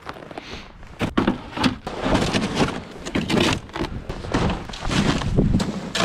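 Ice-fishing gear being loaded into a plastic sled: an irregular run of thunks, knocks and bumps as a cooler, a propane tank and other gear are set in and shifted about.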